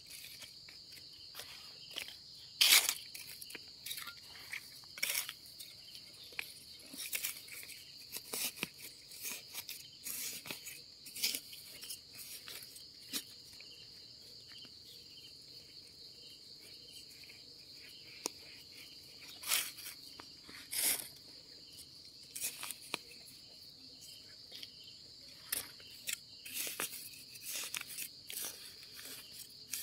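A steady high insect drone, with irregular crackling and crunching of dry leaf litter and twigs, loudest about three seconds in and again around twenty seconds in.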